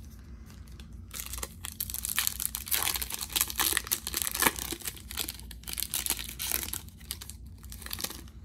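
Wrapper of a Topps Opening Day baseball card pack crinkling and tearing as it is pulled open by hand. The crackling starts about a second in and is loudest around the middle.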